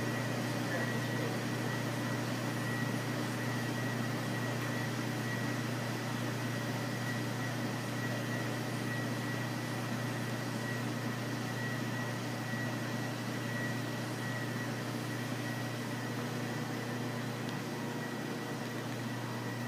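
Underwater treadmill running: a steady motor hum with a thin, constant high whine over it.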